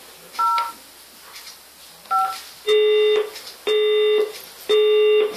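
Polycom SoundStation 2 conference phone: two keypad presses, each sounding a short two-note DTMF tone through its loudspeaker. These are followed by three steady beeps about half a second long and a second apart, a call-progress tone on the line.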